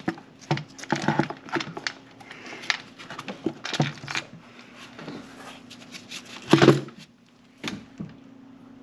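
Knocks, scrapes and rattles of the Audi 4.2 V8's intake manifold being lifted straight up and out of the engine, with one louder knock about two-thirds of the way through.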